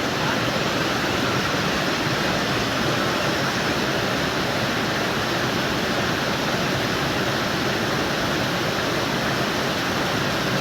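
Waterfall running: a steady, unchanging rush of falling water.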